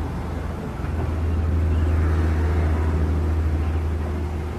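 Hitachi hydraulic excavator's diesel engine running with a steady low drone while it works its boom and bucket, growing louder about a second in and easing off near the end.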